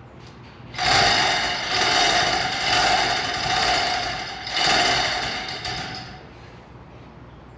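Hand chain hoist being hauled to lift a truck body: a fast metallic chain rattle with a ringing edge, in about four pulls lasting some five seconds.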